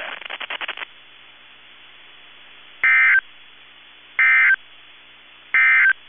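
NOAA Weather Radio SAME digital tones: three short, loud warbling data bursts about a second apart, over faint radio hiss. This is the end-of-message code that closes the Required Weekly Test.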